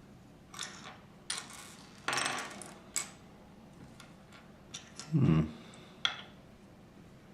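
Small plastic LEGO pieces being handled: a string of sharp clicks and short clattering scrapes, with a louder dull thump about five seconds in.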